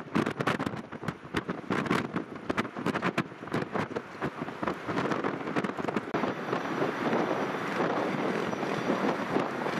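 Hard wind buffeting the microphone in gusts over the jet engine noise of a KLM Boeing 747-400 on the runway. After a cut about six seconds in, a steadier jet rumble with a faint high whine comes from a four-engined Boeing 747 on approach, still under wind buffeting.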